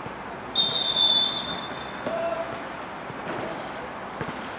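Referee's whistle blown once, a single shrill blast about half a second in that lasts about a second, stopping play.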